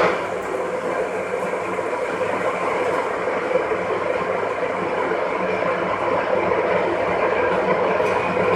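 A machine running steadily with an even mechanical noise.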